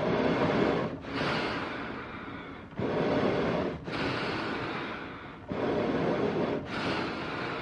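Eerie animal breathing sound effect: slow, heavy breaths in and out follow one another without pause, about one every second or so. Each breath is noisy with no pitch, one lower and deeper, the next brighter and hissier, about six breaths in all.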